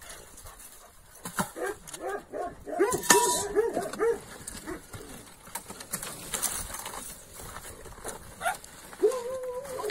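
Dog whining and yelping in quick rising-and-falling cries, in two runs about one and three seconds in, then a longer whine near the end: a dog eager to be let out of its pen. A sharp knock sounds about three seconds in.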